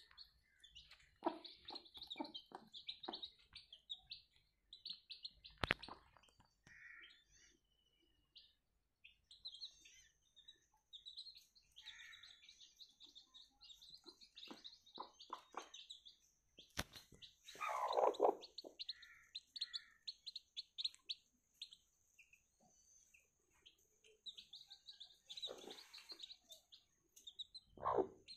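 Newly hatched chicks peeping, quick high cheeps in runs. Among them the mother hen gives lower clucks now and then, loudest about eighteen seconds in, and there are two sharp knocks.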